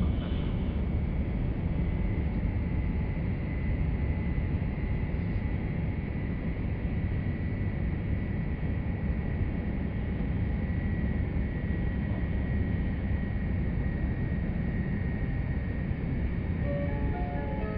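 Joetsu Shinkansen cabin running noise: a steady low rumble with a faint high whine held over it. Near the end, the notes of the onboard pre-arrival chime begin.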